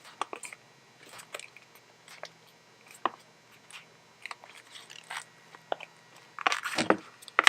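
Snap-fit clips of a Samsung Galaxy J7 (J737) phone housing clicking into place as the parts are pressed together: scattered sharp clicks and crackles, with a louder run of clicks and a knock near the end.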